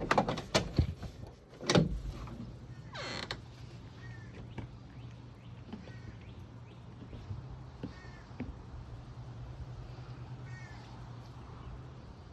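A door knocking and clattering open in the first two seconds, then a falling squeak about three seconds in. After that, a steady low hum and a few faint short bird chirps.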